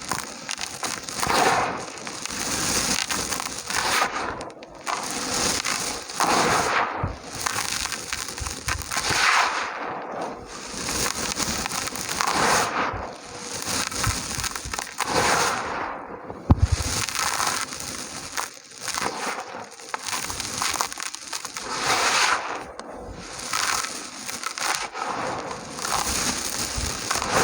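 Dry red dirt pieces crumbling and crunching, a gritty crackle that swells in repeated squeezes every second or two.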